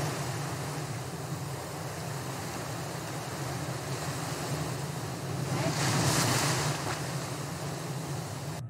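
Ocean surf washing and churning around a camera in the water, with wind buffeting the microphone. A wave surges louder about six seconds in, and the sound cuts off abruptly near the end.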